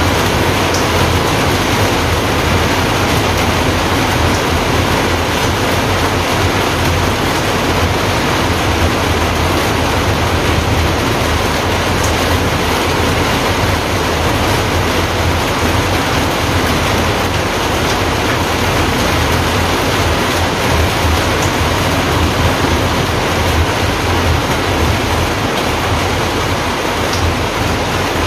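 Steady, loud rushing noise with a low, flickering rumble underneath, unchanging throughout.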